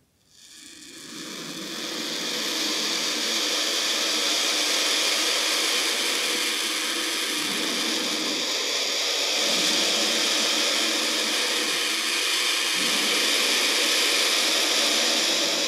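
Turkey vulture hissing: a steady, rushing hiss that fades in over the first couple of seconds, then holds without a break.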